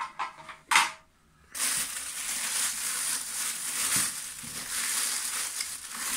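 Thin plastic carrier bag rustling and crinkling continuously as hands pull it open to unwrap a part. It starts about one and a half seconds in, after a few short handling noises, the sharpest just under a second in.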